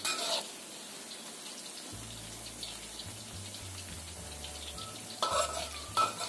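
Battered tempeh cubes deep-frying in hot oil in a wok: a steady crackling sizzle. A metal spatula scrapes and knocks against the wok near the start and twice near the end as the pieces are turned.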